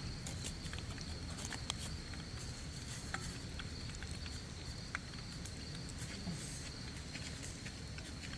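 Quiet outdoor ambience: a low steady hiss with a thin steady high whine, and scattered faint small clicks and taps.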